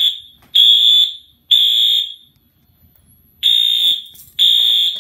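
Fire alarm horn sounding the temporal-three evacuation pattern at high volume, set off by a pulled pull station. It gives three short, loud, high-pitched blasts about half a second apart, pauses for over a second, then starts the next group of three.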